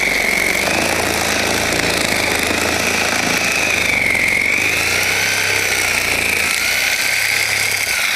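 Electric power saw cutting a hole through the roof shingles and decking, running steadily with a motor whine that dips briefly in pitch as the blade bogs in the cut.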